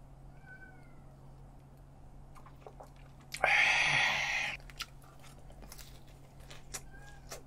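A man drinks from a cup with little sound, then lets out one loud, breathy 'haa' lasting about a second, the exhale after a mouthful of hot, spicy liquid.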